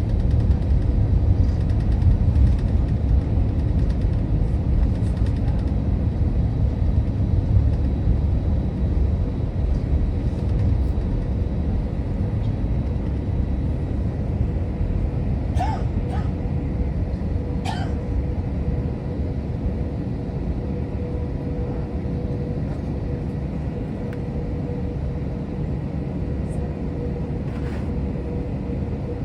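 Steady low rumble of an Airbus A321-200 cabin with the engines running, easing slightly over time, with a faint steady hum joining partway through and two brief clicks near the middle.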